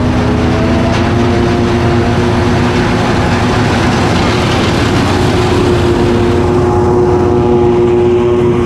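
Heavy farm machinery engine running steadily, with a constant hum and a tone that rises slightly in pitch over the first few seconds.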